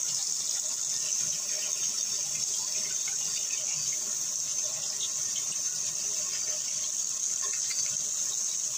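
Bathroom tap running steadily into a sink, its stream splashing over an electric shaver's head held under it for rinsing.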